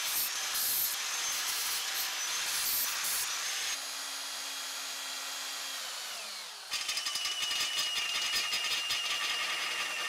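Angle grinder with a cutoff wheel cutting steel tube for about the first four seconds, its whine then winding down. From about seven seconds in, a cordless drill with a step bit runs steadily, boring through steel rectangular tubing.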